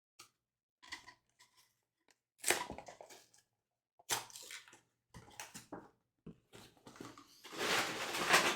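Trading-card packs and cards being handled: short scattered crinkling and rustling, with a longer, louder crinkle near the end.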